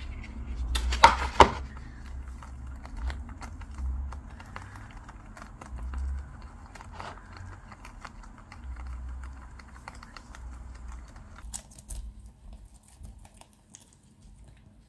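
Guinea pigs chewing romaine lettuce and raw vegetables: many quick, small crunching clicks over a low rumble. There are two loud clicks about a second in.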